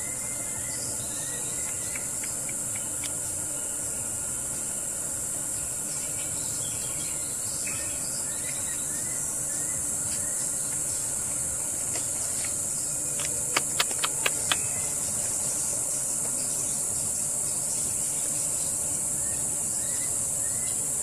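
Steady, high-pitched insect chorus. About two-thirds of the way in, five sharp clicks come in quick succession, louder than the chorus.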